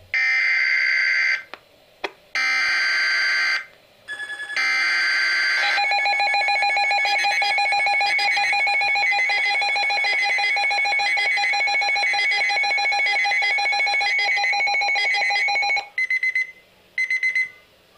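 Emergency Alert System signal. It begins with three short digital data bursts about a second apart, followed by a steady, loud alert tone held for about ten seconds, then a few brief data chirps near the end. This is the header and attention signal that announce a new severe thunderstorm warning bulletin.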